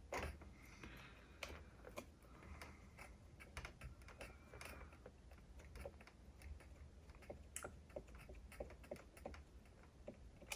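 Faint, irregular small clicks and ticks of pliers working on the metal posts of a cassette deck's tape transport mechanism, over a low hum.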